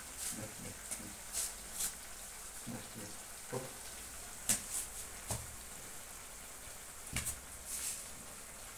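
Bare feet scuffing and padding on a terrazzo floor: a dozen or so soft, irregular brushing scuffs and light taps.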